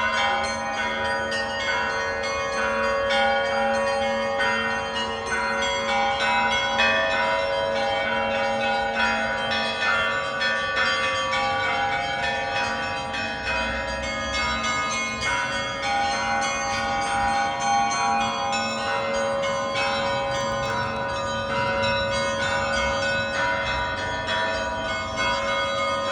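Church bells ringing: several bells struck in rapid, overlapping peals without pause, over the steady ring of larger bells.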